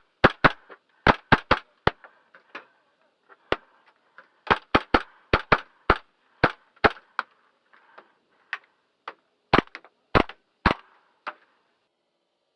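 Airsoft guns firing single shots in quick, irregular strings: sharp cracks, some in rapid pairs and runs of three or four, stopping about a second before the end.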